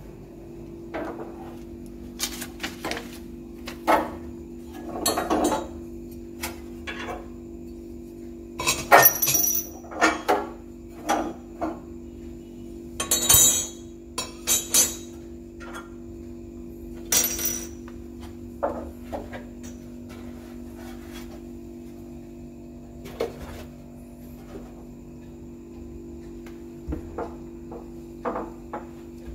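Irregular metal clinks and clatter of stove parts being handled, over a steady low hum. The clatter is busiest in the first half and thins out later.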